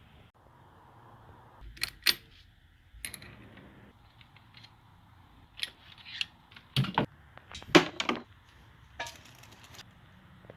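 Metal hand tools and engine parts clinking and clanking: a string of about nine sharp, irregular knocks, the loudest about eight seconds in.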